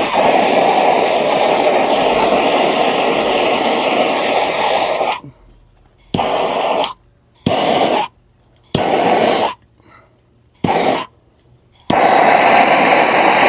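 Blowtorch flame running steadily for about five seconds, then cutting on and off in four short bursts and a longer one near the end, as it scorches the surface of carved wood to darken it.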